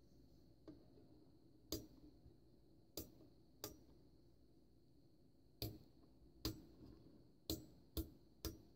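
Rotary selector switches on a vintage Mercury Model 1600 audio generator clicking from position to position as the knobs are turned: about nine short, sharp clicks at uneven intervals.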